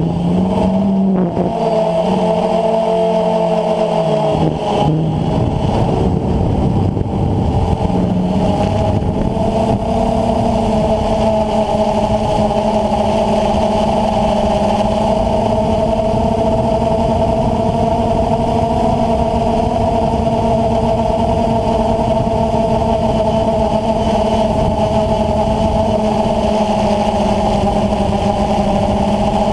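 DJI Phantom FC40 quadcopter's motors and 9450 propellers whining steadily in flight, heard from the GoPro mounted on it, with wind noise on the microphone. The pitch shifts several times in the first ten seconds as the motors change speed, then holds steady.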